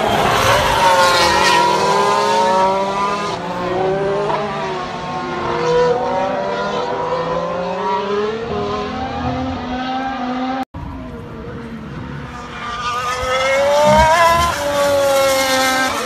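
Formula One cars' 1.6-litre turbocharged V6 hybrid engines at speed as the cars pass on track. The engine pitch rises and falls again and again. It cuts out briefly about two-thirds through, then another car comes closer, louder and higher in pitch, near the end.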